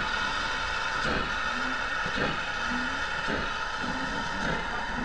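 Steam-hauled passenger train pulling out, its coaches rolling past with a regular beat about once a second over a steady high-pitched tone.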